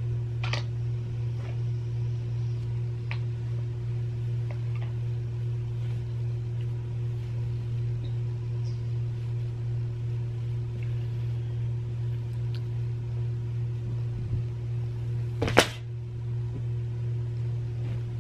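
A steady low hum with no speech, with faint scattered handling noises as clothes are shaken out and folded, and one sharp knock about fifteen and a half seconds in.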